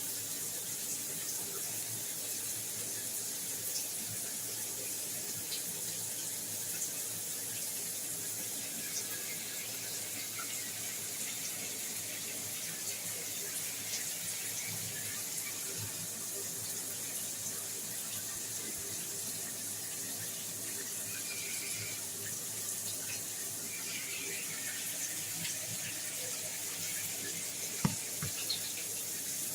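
Shower water running steadily, a constant hiss of spray. A single sharp knock comes near the end.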